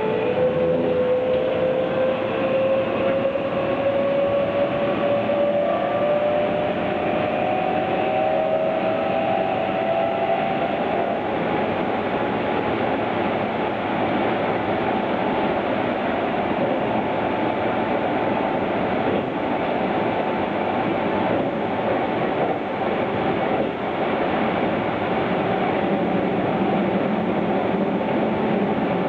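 Keihan 9000-series electric train running, heard from inside the car: the motor whine climbs in pitch for about the first ten seconds as the train accelerates, then gives way to a steady rumble of wheels on rail at speed.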